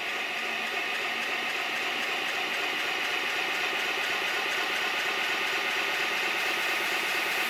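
A 5-inch gauge Stirling single model steam locomotive running steadily on a rolling road: a fast, even hiss from its cylinders with the rattle of its motion and rollers. It is being run to clear water out of the cylinders.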